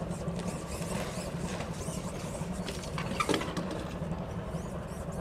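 A steady low engine drone with small scratchy clicks over it, and a short louder cluster of clicks about three seconds in.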